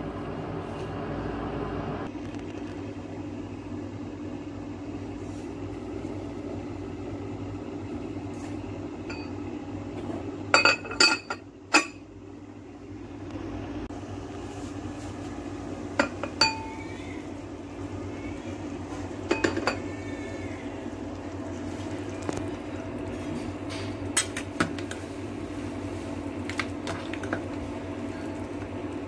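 A glass pot lid and a metal ladle clinking against a cooking pot, in scattered sharp knocks, a quick cluster about ten seconds in and single clinks later, some with a short ring, over a steady low hum.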